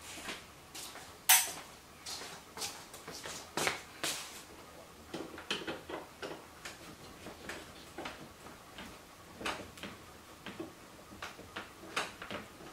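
Irregular light clicks, taps and clatter of hands working on a car's plastic interior trim and small screws, with a sharper knock about a second in.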